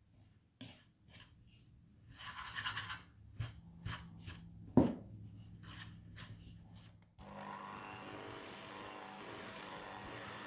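Wire whisk scraping and rubbing through a dry almond-flour mixture in a mixing bowl in irregular strokes, with one sharp knock against the bowl near the middle. About seven seconds in, this gives way to an electric hand mixer running steadily, its beaters working the crumbly dough.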